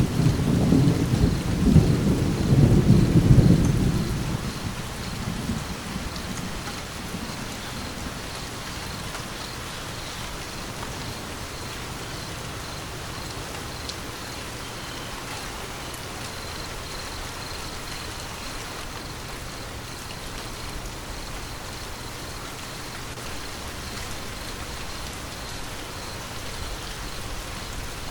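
Steady rain with a low rumble of thunder that dies away over the first few seconds, leaving only the even sound of rain falling.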